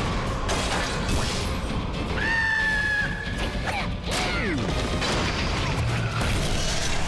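Slapstick cartoon soundtrack: background music under busy clattering effects, with a high held squeal about two seconds in and quick falling squeals about a second later.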